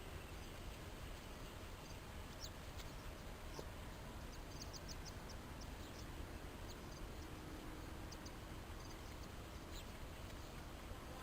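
Short, high-pitched animal chirps, scattered, with a quick run of about five near five seconds in, over a steady low hum.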